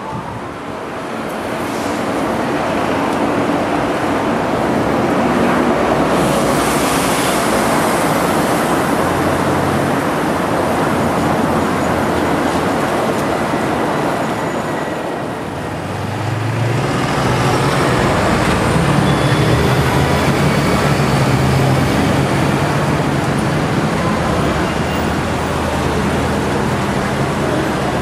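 City street traffic: steady road noise of passing cars and buses. A vehicle engine hums close by through the second half.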